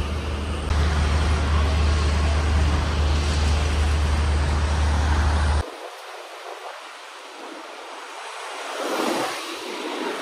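Street traffic with a loud, steady low rumble that cuts off suddenly about five and a half seconds in, leaving a quieter street. Near the end a small box truck drives past.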